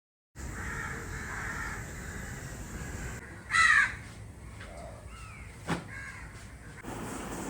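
A crow cawing: one loud, harsh caw about three and a half seconds in, with fainter calls around it over steady outdoor background noise. A sharp click comes a couple of seconds after the loud caw.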